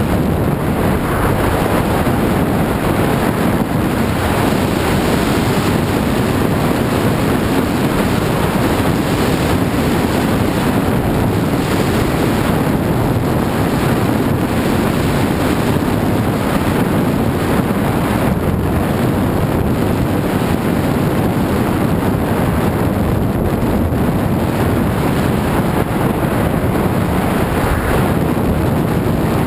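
Steady rush of wind buffeting the microphone of a camera carried down a ski run at speed, mixed with the hiss and scrape of skis running over groomed snow.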